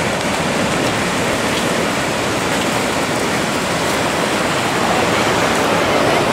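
Ocean surf breaking, a steady rushing noise of waves that swells a little near the end.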